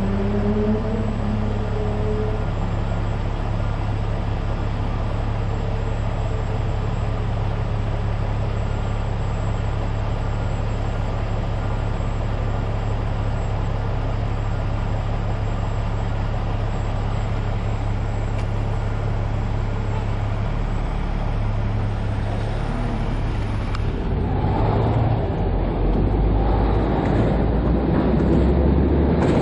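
Road and traffic noise heard while riding along a street: a steady low rumble that gets louder and rougher about 24 seconds in.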